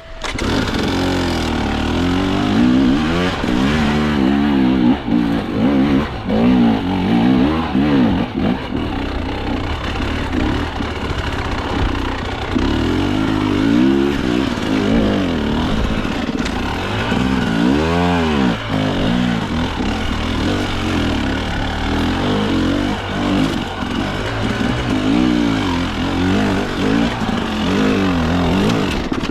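Two-stroke KTM enduro dirt bike engine being ridden off-road, revving up and down over and over as the throttle is worked, with one sharp rev that rises and falls about two-thirds of the way through.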